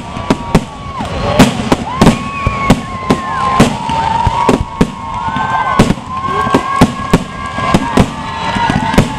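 Aerial fireworks display: a rapid barrage of shell bursts, about two bangs a second, over long whistling tones that sag in pitch as they die away.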